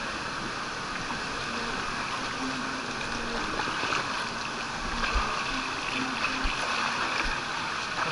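Steady rush and churn of water around an inner tube riding a water-park flood river, heard with the camera close to the water surface, with a few dull knocks in the second half.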